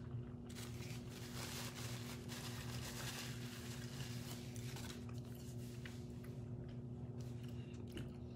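Soft eating sounds: chewing and handling of fast food, with a stretch of rustling in the first half, over a steady low hum.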